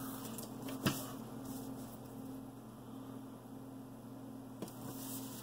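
Steady low electrical hum, with faint handling noise as a paper worksheet is moved, and one sharp click about a second in and a softer one near the end.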